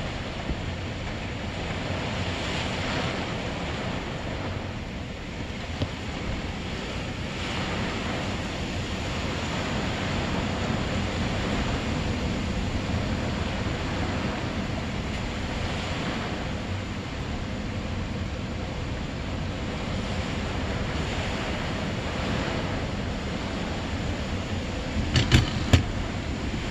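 Steady rush of heavy thunderstorm rain and gusting wind, with a few sharp cracks close together near the end.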